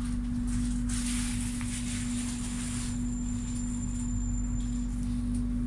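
Tram interior: the tram's electrical equipment hums one steady low tone over a constant running rumble, with a faint thin high whine in the middle.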